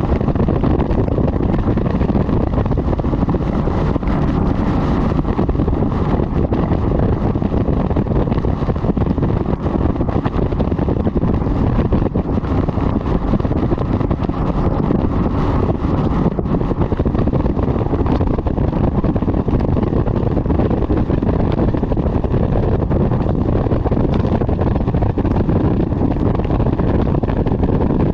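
Wind buffeting the microphone on a bass boat running flat out, mixed with the steady sound of its outboard motor. A loud, even rush throughout, with no let-up.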